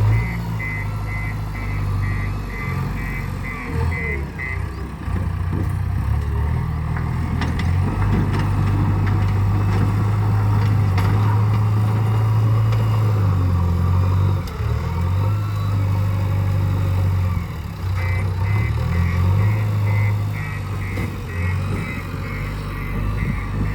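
JCB 3DX backhoe loader's diesel engine running under varying load as it works, with the machine's reversing alarm beeping about twice a second for the first few seconds and again over the last six seconds.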